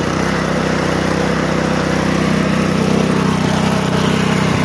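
Loncin 212cc single-cylinder four-stroke snowblower engine running steadily, freshly cold-started after sitting about two months.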